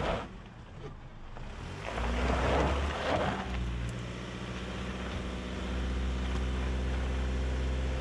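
2020 Toyota RAV4 TRD Off-Road's 2.5-litre four-cylinder engine running at wide-open throttle at a steady pitch while the SUV struggles up a steep rocky climb with a wheel lifted, barely moving: it lacks the low-end torque to overcome the traction-control braking on the spinning wheel. A rushing noise comes about two seconds in, before the engine settles to its steady drone.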